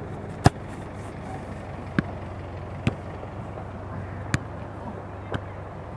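A football kicked sharply about half a second in, then four fainter single ball thuds spaced roughly a second apart, over a steady low background rumble.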